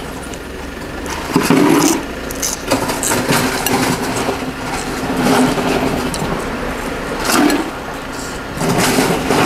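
Wooden chopsticks and a metal spoon stirring noodles in a soup bowl, with scattered light clinks and scrapes, over a steady low hum.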